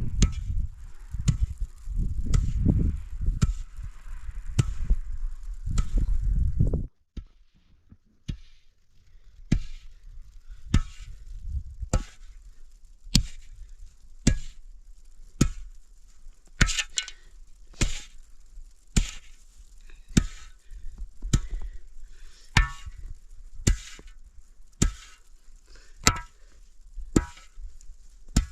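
Repeated chopping strikes of a hand tool, evenly spaced at a little more than one a second, some with a brief ringing edge. For about the first seven seconds a loud low rumble runs under the strikes, then cuts off suddenly.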